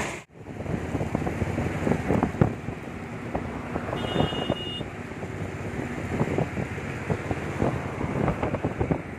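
Wind buffeting the microphone and road noise from a moving vehicle, with many small irregular knocks. A short high beep sounds about four seconds in.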